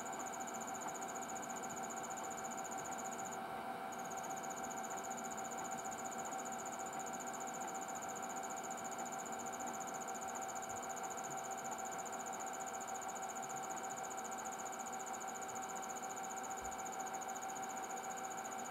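An insect trilling steadily at a high pitch, breaking off briefly about three and a half seconds in, over a steady mid-pitched hum.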